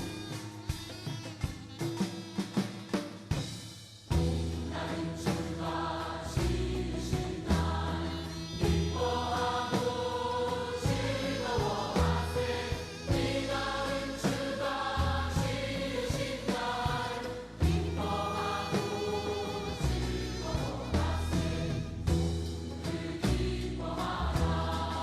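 Music with group singing over long, deep bass notes; a run of sharp drum strokes fills the first four seconds before the bass and voices come in.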